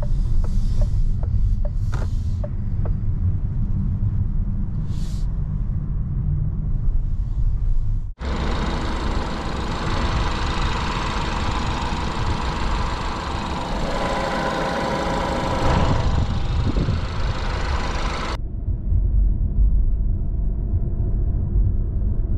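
Low road and engine rumble inside the cabin of a DS 4 E-Tense 225 plug-in hybrid on the move. About eight seconds in it cuts to the car's turbocharged four-cylinder petrol engine running with the bonnet open, a fuller and brighter sound with more hiss. About ten seconds later it cuts back to the low cabin rumble.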